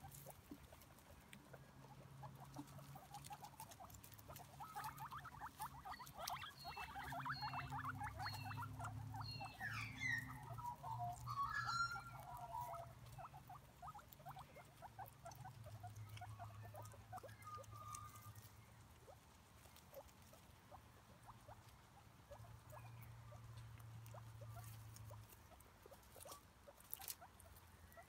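Guinea pigs chewing fresh grass: a rapid run of small crunching and nibbling clicks, busiest in the first half, with a few short squeaks about ten to twelve seconds in.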